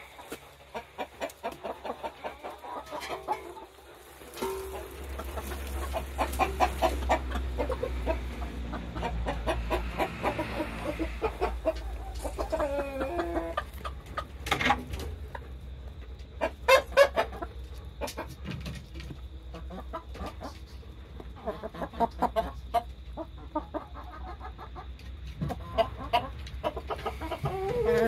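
Brown laying hens clucking while they peck at cooked azuki beans spread on straw, with clusters of sharp pecking clicks. A low steady rumble runs beneath from about four seconds in.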